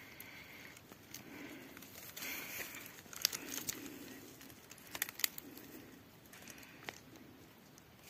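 Faint rustling and crinkling, with a few sharp clicks about three, five and seven seconds in.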